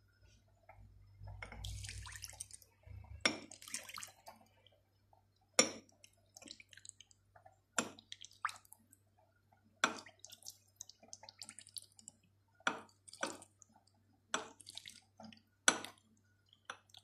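Water poured into bottles of salted garlic and vinegar pickle. A soft, even pour for the first few seconds, then a string of separate sharp drips and taps.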